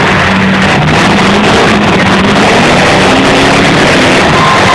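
Several demolition derby cars' engines running and revving together in a loud, unbroken din.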